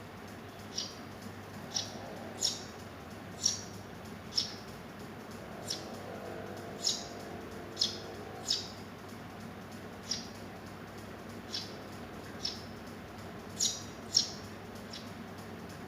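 Young Eurasian tree sparrows chirping: short, sharp high chirps, roughly one a second at irregular intervals.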